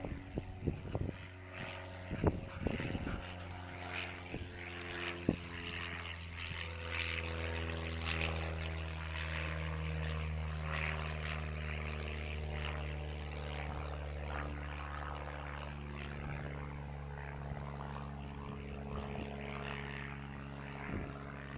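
A steady engine drone, a low hum with a stack of overtones that wavers slightly in pitch, setting in about three seconds in and holding on. A few sharp knocks come over the first five seconds.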